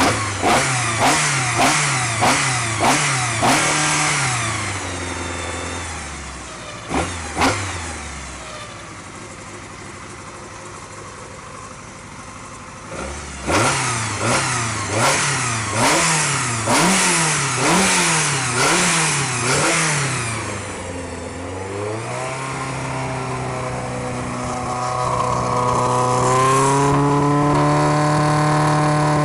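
Ford Puma twin-cam four-cylinder race engine being blipped sharply by hand at the throttle, again and again about twice a second, falling back to idle between runs of blips during an engine test. Near the end it is held at a steady, slightly raised speed.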